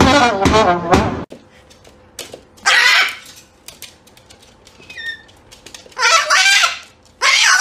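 For about the first second a voice with wavering pitch, cut off abruptly. Then a salmon-crested (Moluccan) cockatoo gives loud, shrill screeches three times, with a faint chirp between them.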